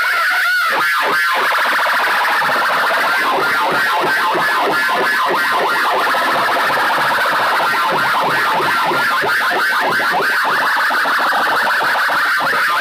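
Stacked horn loudspeakers of a sound-box rig blasting a loud, overdriven siren-like electronic effect: a fast, steady pulsing warble, with a short rising sweep about half a second in.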